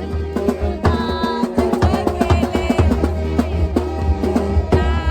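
Music with a steady drum beat, a heavy bass line and a melody line, possibly sung.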